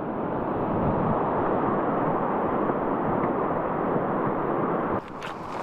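Steady rushing of a flowing stream, an even water noise that cuts in and stops abruptly about five seconds in.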